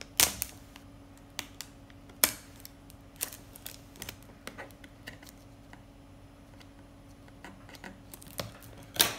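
Scissors snipping through a toy's packaging wrapper: a string of sharp, irregularly spaced cuts, the loudest about a quarter second in and just after two seconds.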